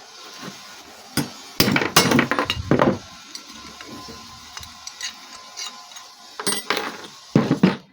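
Hammer blows on a GM door hinge, knocking out the hinge pin after its head has been ground off. The blows come in two groups of sharp knocks, one about a second in and one near the end, with lighter taps between.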